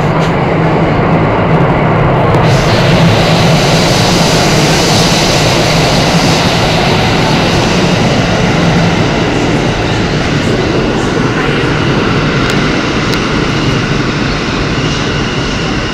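R160 subway car running through a tunnel, heard from inside the car: a loud, steady rumble and rush of the train moving on the rails. A higher hiss joins about two and a half seconds in, and a low hum fades out around nine seconds in.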